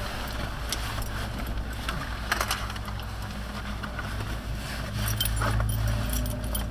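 Light metallic clinks and jangling over the steady low drone of a ferry's engines, the drone growing a little louder about five seconds in.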